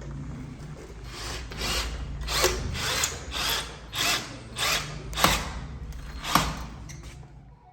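Power drill running in a string of short bursts, about two a second, over a steady low hum.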